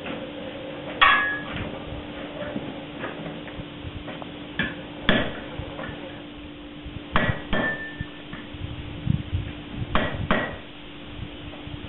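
Blacksmith's hammer striking hot iron on an anvil: about seven scattered blows, several in quick pairs, each with a short metallic ring, the loudest about a second in.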